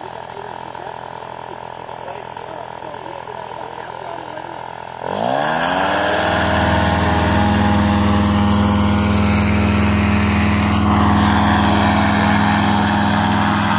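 Powered paragliding trike engine and propeller idling, then throttled up about five seconds in to a loud, steady full-power run for a forward launch, pulling the wing up overhead.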